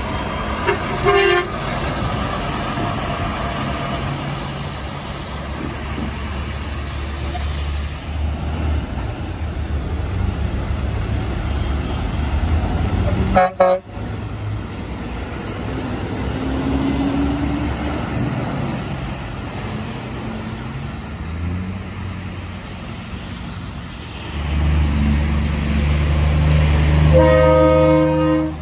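A Volvo VNL semi-truck gives a short blast on its Hadley air horn about a second in, then diesel truck engines run as tractor-trailers pull out. Near the end a Peterbilt 389 gives a blast of about a second and a half on a fouled air horn over its running engine.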